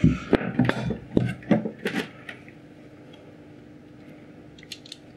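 Wire stripper being picked up and handled: a quick run of clattering knocks and clicks over about two seconds, then a few faint ticks near the end.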